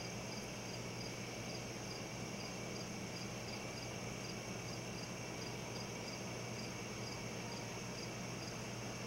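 Crickets chirping at night, a regular chirp about twice a second over a steady high insect trill, with a constant hiss and low hum underneath.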